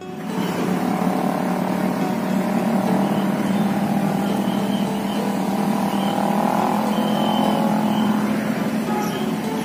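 An engine running at a steady speed: a constant low hum with a fainter, higher steady drone over a background hiss.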